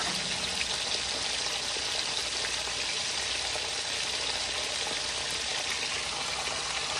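Thin slices of beef frying in hot oil in a skillet: a steady sizzle with a few small crackles.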